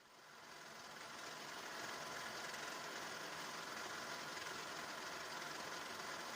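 A workshop power tool's electric motor starts up, builds over about two seconds, then runs steadily while machining the rough face of a steel square bar to flatten it.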